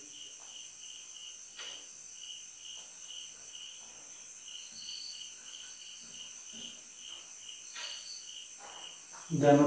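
Insect chirping steadily in an even rhythm, about three high chirps a second, over a faint high hiss.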